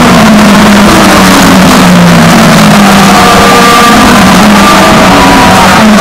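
Several IndyCar race cars, Honda V8 engines, running at speed past the stands, their engine notes overlapping and shifting, some falling in pitch as the cars go by. Very loud, with the recording level at its maximum throughout.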